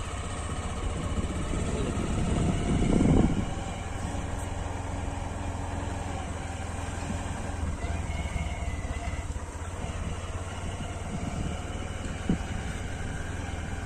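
Motorcycle engine running steadily under way, with tyre and wind noise on a dirt road; a louder surge comes about three seconds in.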